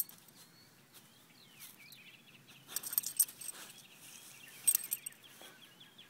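A run of faint, short, wavering high-pitched chirps or squeaks, with brief bursts of rustling about three seconds in and again about a second later.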